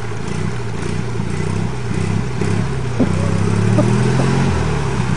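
Argo amphibious ATV's engine running as it moves through a pond, its note shifting slightly and growing a little louder.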